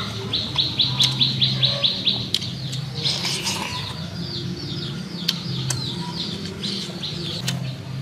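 Wild bird chirping: a fast run of short, high chirps, about seven a second, then looser, irregular chirping for the rest. A few sharp clicks sound over it.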